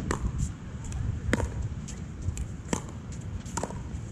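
Pickleball paddles striking a plastic pickleball in a rally: four sharp pops spaced a little over a second apart, with fainter taps between them and a low rumble underneath.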